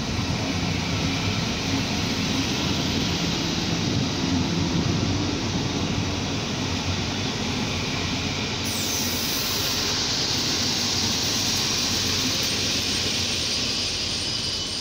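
Passenger coaches of a PKP Intercity train rolling past along the platform: a steady rumble and rush of wheels on the rails, turning brighter and hissier about nine seconds in.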